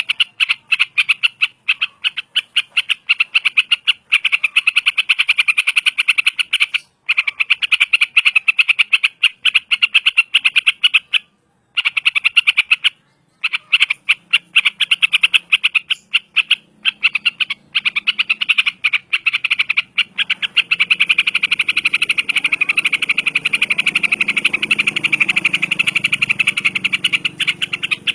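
Trucukan (yellow-vented bulbul) calling in a fast, unbroken chatter of rapid pulses, with a few brief pauses.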